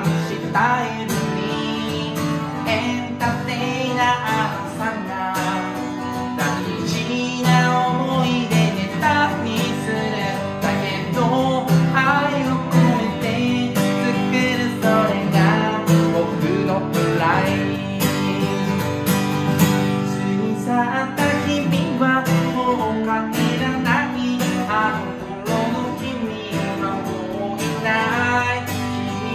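A song: acoustic guitar strumming with a sung vocal melody.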